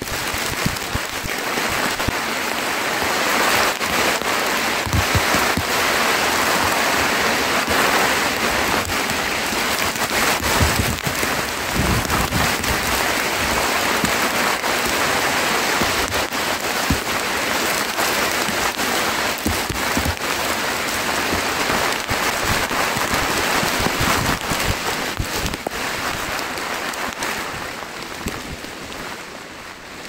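Heavy rain falling: a loud, steady hiss with many sharp drop-hits close by. It sets in suddenly and eases off near the end.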